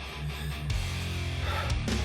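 Background music led by guitar, with a steady low bass line changing notes every half second or so.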